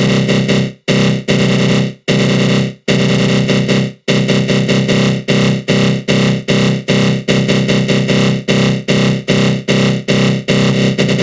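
Synthesized 'attack growl' sound effect: a loud, aggressive synth tone run through a flanger, cut into repeated pulses. The pulses come about once a second at first, then about four seconds in turn quicker, two to three a second.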